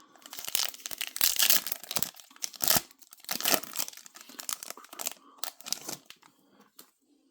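A trading-card pack wrapper being torn open and crinkled in the hands. It makes a run of crackly rustles that thin out to a few faint clicks near the end.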